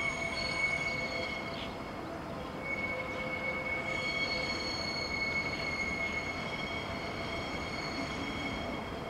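Steel wheels of battery shunting locomotive BL2 and its coupled track wagon squealing on a curve as they crawl through the yard: a steady high whistle with fainter overtones that drops out for about a second near two seconds in, over a low rolling rumble.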